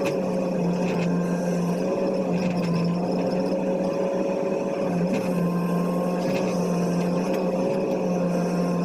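Zoomlion excavator's diesel engine running steadily under load, heard from the operator's cab, while the bucket drags over gravel, with a few light knocks.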